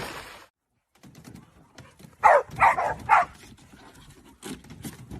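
Dog barking three times in quick succession, about half a second apart, a couple of seconds in, with fainter barks or yips near the end.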